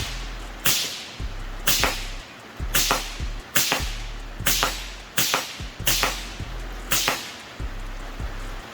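.17 HMR rifle fired eight times in steady succession, about one sharp crack a second, most shots followed a fraction of a second later by a fainter crack.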